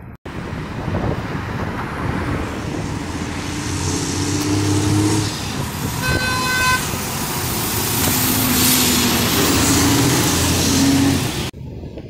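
Street traffic, with a heavy truck's engine running as it passes close by. A vehicle horn gives two short toots about six seconds in.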